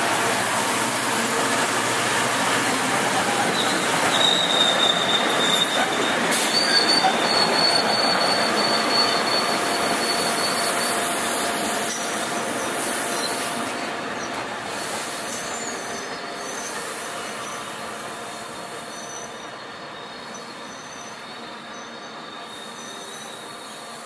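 MBTA commuter rail train of bilevel coaches rolling past, its wheels squealing in thin high tones for several seconds, then the rumble fades steadily as the train pulls away.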